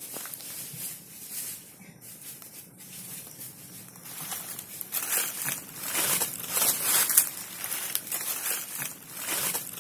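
Footsteps crunching and crackling through dry fallen leaves in uneven steps, getting louder from about halfway through.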